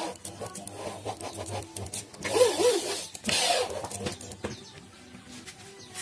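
A bed drawer sliding on metal ball-bearing telescopic slides, with small clicks and two rushing slides, the first with a short squeak, around two and three seconds in.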